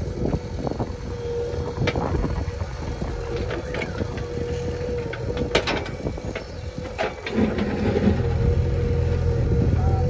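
JCB backhoe loader's diesel engine running steadily under load as the backhoe digs and swings, with several sharp knocks and clatter from the bucket and soil and stones falling into the tractor trolley, the loudest a little past halfway.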